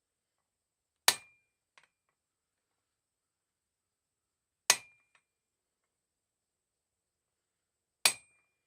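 Three slow single blows of a blacksmith's hand hammer on steel at the anvil, evenly spaced about three and a half seconds apart. Each strike rings briefly, and a light bounce tick follows the first.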